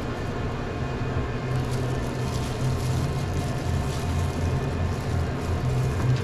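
Steady low hum of restaurant equipment, with light rustling of deli paper and gloved hands placing toppings on a sandwich.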